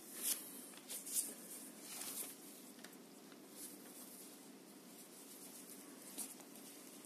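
Handling noise from a plastic magnifier headset frame and its fabric head strap: light clicks and rubbing as the parts are turned and fitted together. The clicks come in a cluster in the first two seconds or so, with one more sharp click near the end.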